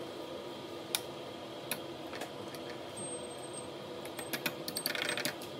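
Metal fork tapping and scraping on a glass plate as it works raw egg over the filling: a few scattered clicks, then a quicker run of clicks and a short scrape near the end, over a steady background hum.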